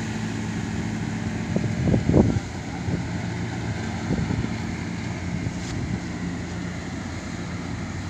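Crawler combine harvester's engine running steadily as it cuts rice, a low drone. Brief gusts of wind on the microphone about two seconds in.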